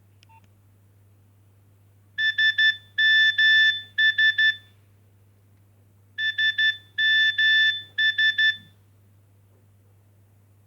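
Nokia 2610 mobile phone ringtone made of beeps on a single pitch: three short beeps, a longer beep and two short beeps, the phrase played twice.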